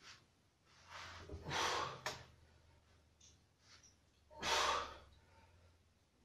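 A man's heavy breathing under exertion while lifting a dumbbell: two forceful exhales, about a second and a half in and again about four and a half seconds in, with a short click at about two seconds.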